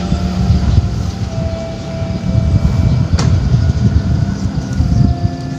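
Wind buffeting the microphone, making a heavy, uneven low rumble, with faint steady tones behind it and a single sharp click about three seconds in.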